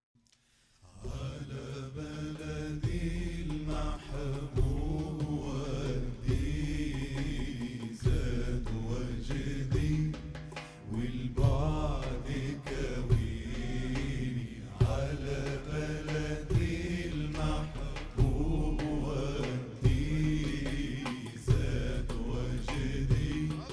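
Male chorus of Damascene nasheed singers chanting a religious song in unison, with long, ornamented sung lines over a steady drum beat. It starts about a second in.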